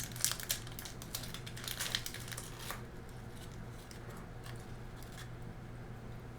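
Plastic snack wrapper crinkling and crackling as a biscuit packet is handled and opened, thinning out after about three seconds to a low steady hum.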